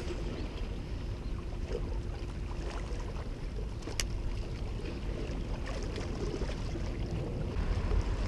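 Wind buffeting the microphone as a low, steady rumble, with a faint steady hum underneath and one sharp click about halfway through.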